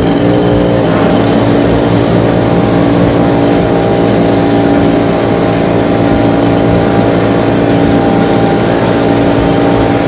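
25-horsepower Honda petrol engine of a Jo Beau M500 wood chipper running just after starting. Its pitch rises briefly in the first second, then it runs steadily as the self-propelled machine drives off.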